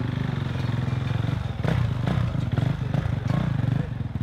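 Motocross bike engines running on the spot, with a few sharp blips of the throttle about halfway through.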